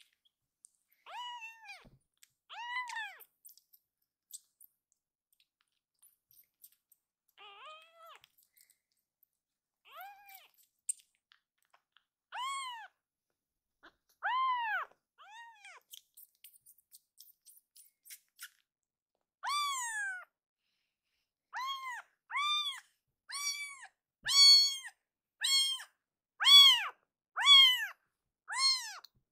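Very young tabby kitten crying loudly in short, high, arching meows: a few scattered calls in the first half, then a rapid run of louder meows about one a second from about twenty seconds in.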